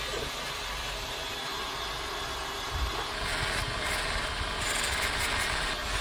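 Allwin Grind Force 6-inch, half-horsepower bench grinder running steadily while a kukri blade is held against its spinning polishing wheel; the sound shifts a little about halfway through.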